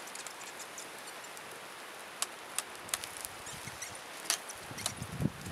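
Wood campfire crackling: sharp pops scattered over a steady hiss, with a brief low rumble near the end.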